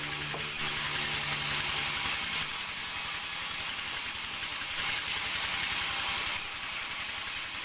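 Machinery at a sawmill: an engine running at a steady speed that fades out about two and a half seconds in, over a continuous mechanical rattle.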